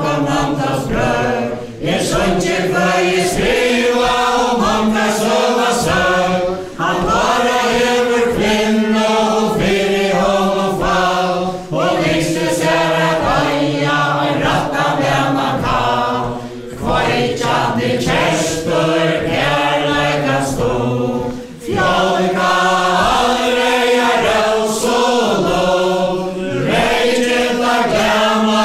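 A mixed group of men and women singing a Faroese chain-dance ballad together in unison, its sung lines breaking with a short pause about every five seconds.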